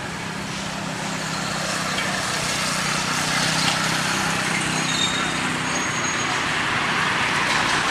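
Steady road-traffic noise with a low steady hum, growing slowly louder.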